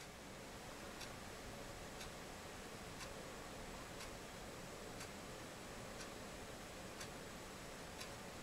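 Faint clock ticking, about one tick a second, over quiet room tone with a thin steady high tone.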